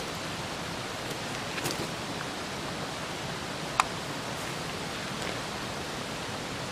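Steady outdoor background hiss with light handling rustles, and one sharp click about four seconds in as a bent metal leg bar of a low camp cot is fitted into place.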